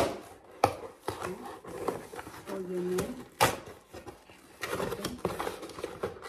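Cardboard shipping box being pulled and torn open by hand: irregular rustling and scraping of the flaps, with a few sharp snaps and rips.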